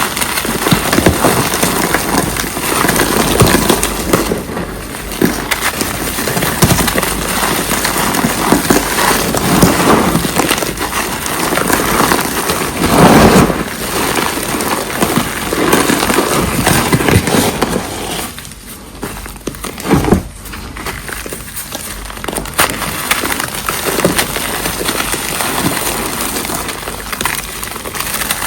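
Reformed cornstarch being crushed and crumbled: a dense, continuous crunching crackle made of many small cracks. It is loudest about halfway through and dips into a quieter spell about two-thirds of the way in.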